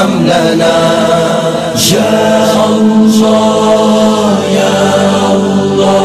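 Devotional vocal music without instruments: a chanted backing of voices on long held notes, with one note sliding upward about two seconds in.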